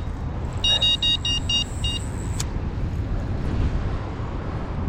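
Electronic carp bite alarm beeping about four times a second, six beeps, as line is pulled off a rod on a run: a fish has taken the bait. A sharp click follows, over low rumbling noise.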